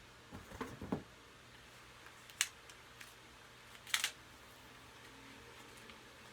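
Handling noises: a few soft knocks in the first second, then two sharp clicks about a second and a half apart, as a plug and cord are worked to switch the fan from its solid-state control to the wall outlet.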